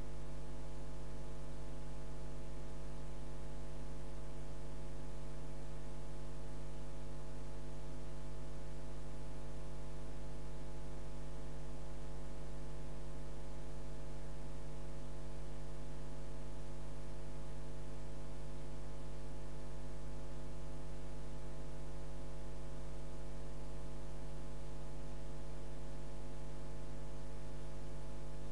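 Steady electrical mains hum: a constant low buzz with many overtones, unchanging in level.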